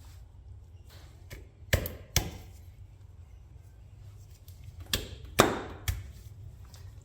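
Five sharp knocks in two groups, two about two seconds in and three around five seconds in, as the CV joint is worked back onto the ATV's axle shaft during a CV boot replacement.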